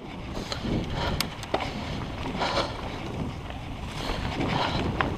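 Mountain bike riding over a dirt trail: steady wind noise on the camera microphone with tyre and frame rattle, and a few sharp clicks.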